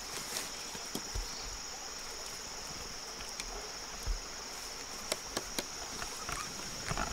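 Steady high-pitched drone of insects, with a few light clicks in the second half.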